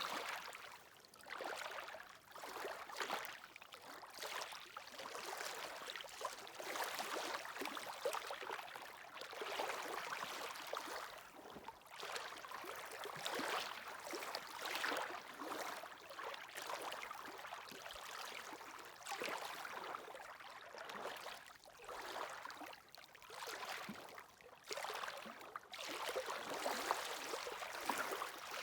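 Waves washing onto a shore: a steady hiss and fizz of water that swells and ebbs every few seconds.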